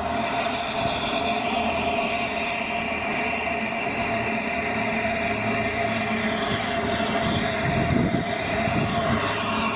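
Peppercorn A1 Pacific steam locomotive 60163 'Tornado' drifting slowly into the platform. A steady hiss of escaping steam runs through it, with a faint steady tone.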